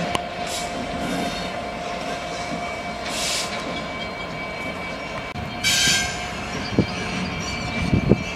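Class 66 diesel locomotive moving slowly through the yard, its two-stroke V12 engine running steadily. Two short bursts of wheel squeal come about three seconds in and just before six seconds, and a few knocks follow near the end.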